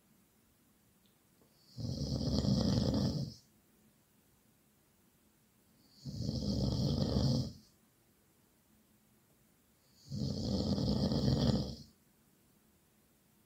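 Loud snoring: three long snores about four seconds apart, each a low rumble with a hiss on top, with near-silent pauses between them.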